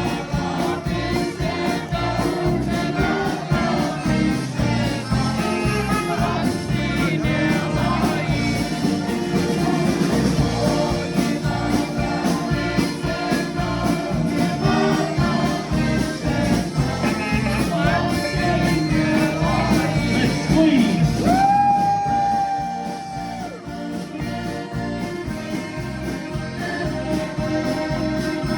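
A song with singing over instruments and a steady beat. About three quarters of the way through a long note is held, then the music briefly goes quieter.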